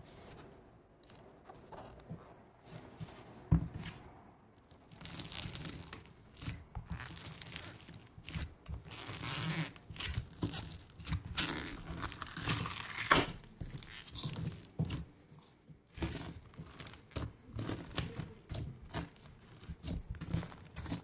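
Fingers pressing into and kneading fluffy slime topped with foam beads, making dense runs of small crackles and pops, with one sharp tap about three and a half seconds in.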